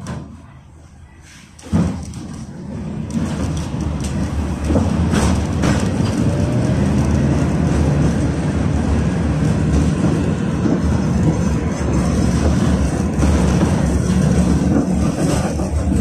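KTM-19 (71-619KT) tram pulling away from a stop, heard from inside the car: a sudden jolt about two seconds in, then the low rumble of the running gear and wheels on the rails builds over the next couple of seconds and runs on steadily, with occasional clicks.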